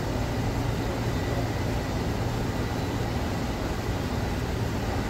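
Steady low hum and whir of a fast wire EDM's wire drum running, winding molybdenum wire as the drum travels sideways toward its limit.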